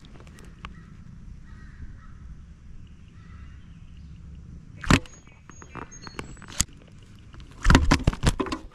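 A bass being handled on a plastic fish measuring board in a kayak: a sharp knock about five seconds in, then a loud cluster of knocks and clatter near the end, over a low steady rumble. Faint calls are heard in the background in the first few seconds.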